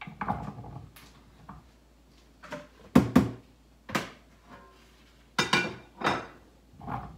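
Kitchen clatter: peeled carrots set down on a cutting board, then dishes and a plastic container knocked about at the sink. There are a handful of sharp knocks and clinks, the loudest about three seconds in and a cluster near the end.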